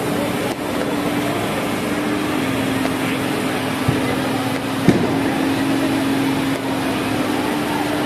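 Fire engine's engine and water pump running steadily to feed a hose jet: a constant hum that shifts slightly in pitch twice, under a steady hiss. A couple of brief knocks about four and five seconds in.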